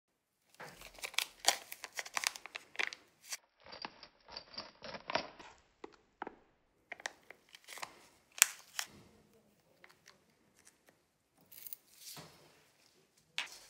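A small clear plastic bag of rhinestones being handled by a gloved hand, crinkling and rustling in short irregular bursts of clicks.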